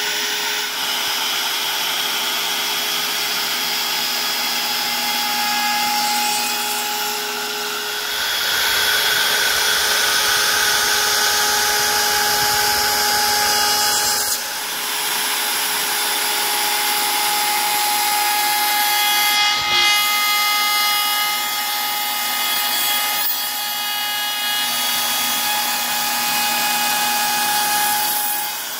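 CNC-driven wood router spinning a 5/8-inch two-flute carbide bit at around 21,000 RPM while it surfaces the face of a maple slab: a steady high whine over the rasp of the bit cutting wood. The cutting gets louder from about eight seconds in and eases briefly around fourteen seconds.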